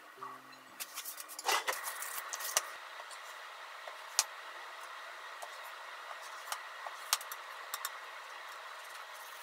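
Kitchen knife slicing through kamaboko fish cake and tapping the cutting board: a loud handling noise about a second and a half in, then a sharp click with each slice, about half a dozen in all, over a steady background hiss.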